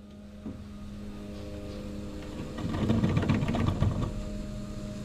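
Wilesco D21 toy live-steam engine as its throttle valve is eased open: steam hissing through the cylinder builds, rises to a loud rapid pulsing about three seconds in, then eases back.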